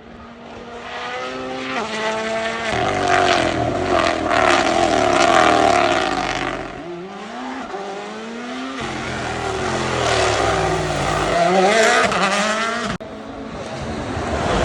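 Rally car's engine accelerating hard, its pitch climbing and dropping sharply at each upshift. It gets loud as the car passes close, eases off briefly in the middle, then accelerates again. The sound breaks off suddenly near the end.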